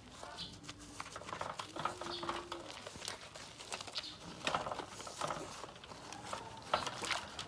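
Hands scrubbing a wet puppy's soap-lathered fur in a basin of water: irregular squelching and pattering with small splashes.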